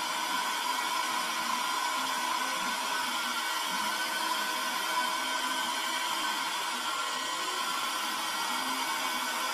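Handheld vacuum cleaner running steadily: a constant motor whine over rushing air.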